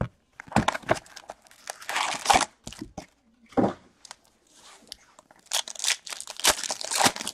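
Plastic wrapping crinkling and tearing as a hockey card box is unwrapped and its card packs are handled, then a pack wrapper is torn open. The sound comes as a series of short rustling bursts, loudest about two seconds in and again near the end.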